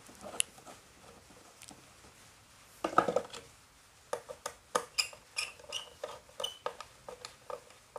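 Light handling clicks and taps of a screwdriver, stiff insulated wire and plastic fittings being worked on a wiring board: a few scattered clicks, a short scuff about three seconds in, then a quicker run of small clicks and metallic ticks in the second half.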